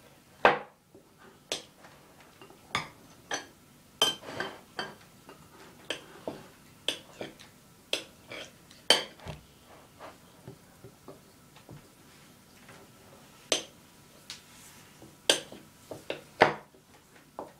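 Table knife clinking against a plate as a block of butter is cut into small pieces: irregular sharp clicks, roughly one a second.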